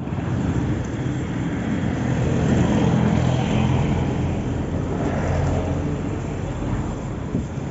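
Road traffic close by: a motor vehicle's engine hum and road noise, swelling about two to three seconds in and easing off after.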